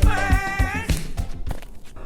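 A song with a sung vocal over a steady drum beat; the voice stops about a second in and the music thins out.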